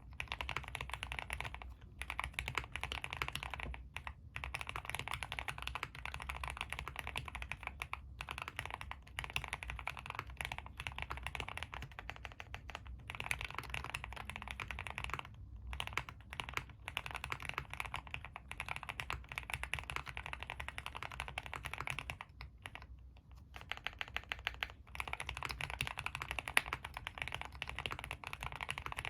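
Continuous typing on a Suit80 custom mechanical keyboard with linear Tealios v2 switches in Cherry top housings, an aluminium plate and GMK keycaps: a dense run of key clacks with a few short breaks, the longest about twenty-two seconds in.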